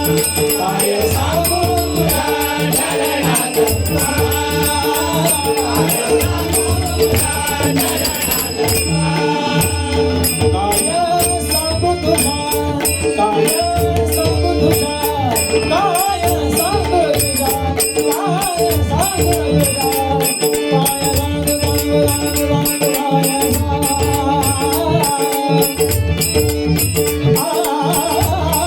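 Marathi devotional abhang in bhajan style: a voice sings a bending melody over a steady held drone, with a quick, even metallic rhythm and a low drum pulse.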